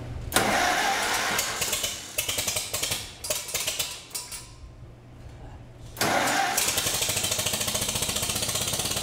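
1941 Farmall M tractor's four-cylinder engine being started on two tries. On the first try it cranks and sputters, then dies away after a few seconds. About six seconds in, the second try catches at once and the engine runs steadily with an even firing beat.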